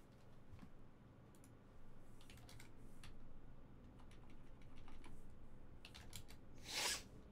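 Light, irregular clicks and taps of typing on a computer keyboard, with a brief louder rustle near the end.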